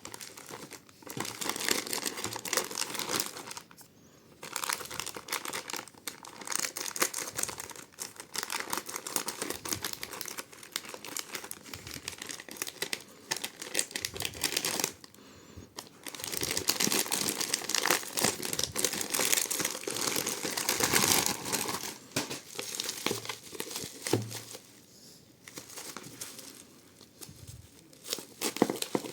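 Doorbell packaging being handled and unwrapped: dense, irregular crackling in stretches, with brief pauses about 4, 15 and 25 seconds in.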